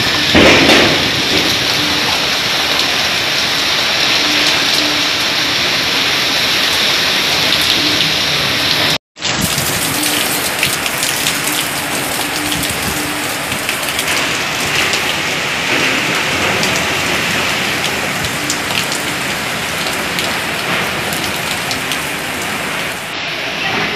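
Torrential rain pouring onto flat concrete rooftops standing in water: a dense, steady hiss of downpour, with a louder surge about half a second in and a split-second break about nine seconds in.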